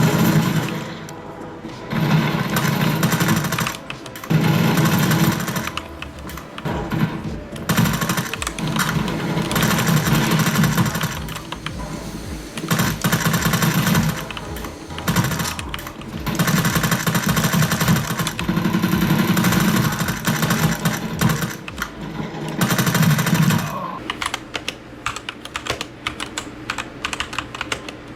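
MageGee MK 75% mechanical keyboard being typed on fast, in dense bursts of clacking keystrokes a couple of seconds long with short pauses between. Near the end it slows to separate, single key presses.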